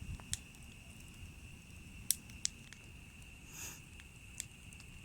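Steady high-pitched insect drone, like cicadas or crickets, with a few sharp snaps scattered through it.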